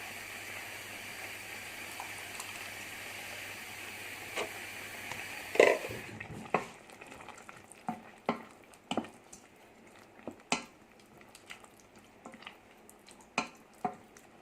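A pan of mushroom sauce simmering with a steady sizzling hiss. About five and a half seconds in there is one loud clatter, then the hiss drops away and a spoon knocks and scrapes against the pan at irregular intervals as the sauce is stirred.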